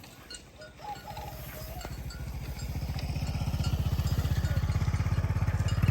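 Small diesel engine of a rice combine harvester running with an even, fast low throb, growing steadily louder.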